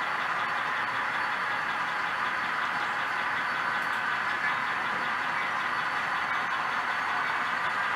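Sound decoders in HO-scale EMD SD40-2 locomotive models playing a steady diesel engine sound through small onboard speakers. The sound is thin, with little bass.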